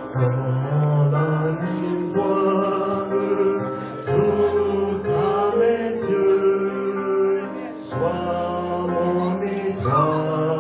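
Music with group singing over a sustained low accompaniment, the notes changing in phrases about two seconds long.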